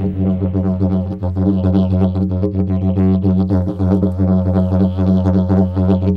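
Didgeridoo played as a steady low drone, with rhythmically pulsing, shifting overtones above it.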